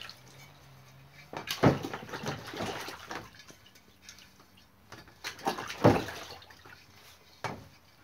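Water splashing and sloshing while the inside of a wheelbarrow tyre is washed out, in two bursts about four seconds apart, then a short knock near the end.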